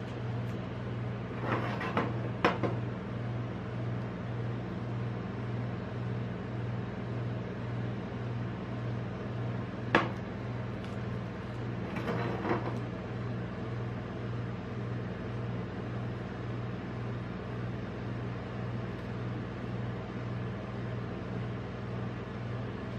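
Steady low hum of a rolled-ice-cream machine's refrigeration unit under the steel cold plate. Over it come a few light knocks: two about two seconds in, a sharp one at about ten seconds, and a glass bottle being lifted off the metal plate about twelve seconds in.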